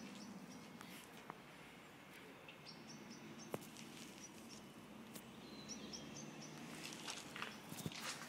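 Faint handling noise from a moving phone camera: scattered clicks and rubbing over a low steady hum, with a few short high chirps in small groups.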